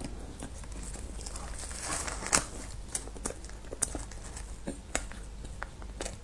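Close-miked eating sounds: chewing, with sharp mouth clicks and light crinkling, the loudest click a little over two seconds in.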